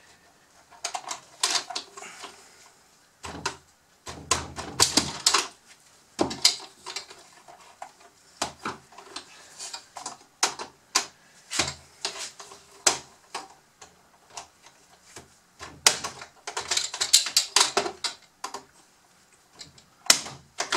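Hard plastic parts of a Bruder CAT D11 toy bulldozer clicking and rattling as the model is handled and taken apart by hand, in irregular clusters of sharp clicks.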